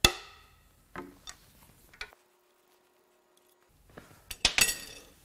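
Steel hand tools clinking against an engine's cylinder head and cam gear. There is a sharp ringing clink at the start, a few light taps, a short quiet gap, then a run of clinks ending in a loud ringing metal strike.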